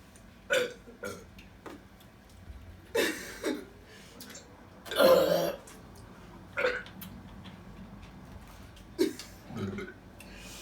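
A string of short human burps, brought on by drinking soda, with the loudest and longest about five seconds in.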